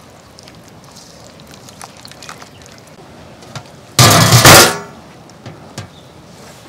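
A sudden loud, harsh clatter about four seconds in, lasting under a second, over a quiet outdoor background with faint scattered ticks.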